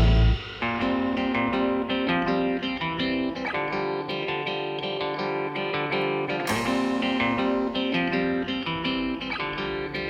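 Music led by a plucked guitar. A louder, fuller passage cuts off just after the start, and a quieter guitar melody carries on.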